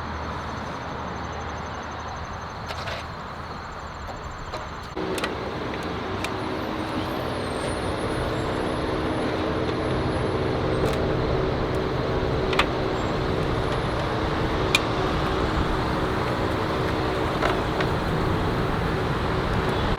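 Road traffic noise, a steady wash of passing vehicles, with a steady low engine-like hum that sets in about five seconds in and holds on.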